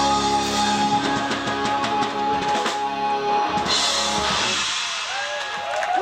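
Live rock band playing loudly on electric guitars and a drum kit with cymbals; the playing stops about five seconds in and the last notes die away.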